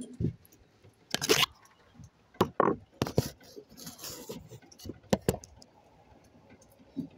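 Handling noise at a wooden workbench: irregular knocks, clicks and scrapes of tools and wires being moved about.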